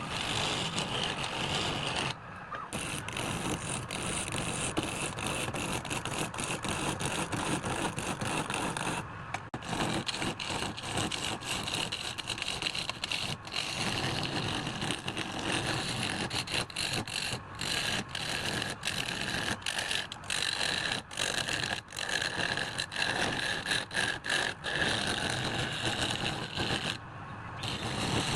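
Wood lathe running while a turning tool cuts and scrapes the spinning wood: a continuous rough grinding whir full of fine ticks, with short breaks about 2, 9 and 27 seconds in.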